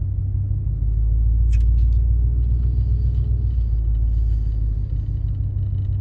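Motor vehicle running with a steady low rumble, with a couple of faint clicks about a second and a half in; it cuts off suddenly just after the end.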